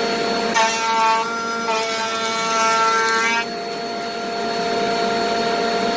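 Dust collector running steadily, with the DeWalt DW618 router in its router lift running alongside. The router's higher whine comes in about half a second in and stops about three and a half seconds in, leaving the dust collector's hum.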